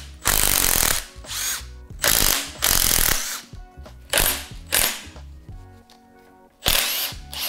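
A ratchet spinning bolts out of a Volvo 2.5T engine block in a series of short rasping bursts, some under a second long, with a quieter gap near the middle, over quiet background music.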